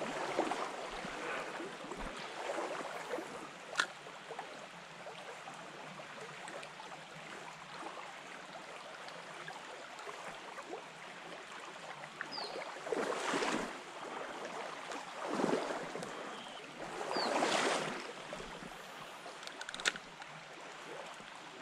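River water running steadily, with three louder swishing swells of water noise a couple of seconds apart past the middle and a few faint clicks.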